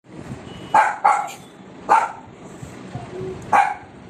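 Pomeranian barking: four short barks, two close together about a second in, one near two seconds, and one more toward the end.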